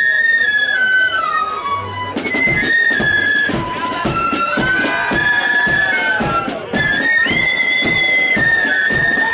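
Marching flute band playing: the flutes carry a high melody that steps down in pitch, and about two seconds in the bass drum and side drums come in with a steady beat under it.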